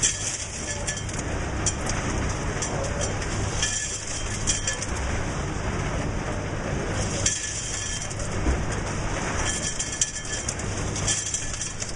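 Cool-Serve CS 1300 ice-vending machine dispensing ice into an esky: a steady motor hum under the rattle of ice falling, coming in waves with brief lulls.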